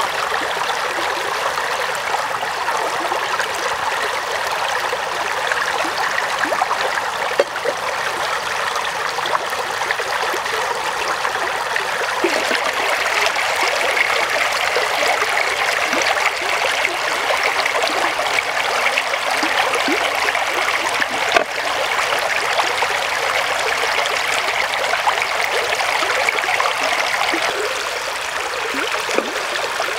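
Shallow stream rushing over rocks: a steady, even water hiss, with a faint knock or two.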